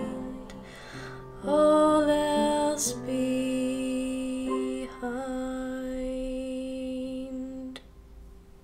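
Closing bars of a slow, soft song: long held notes with a few sliding onsets, the sound stopping abruptly near the end.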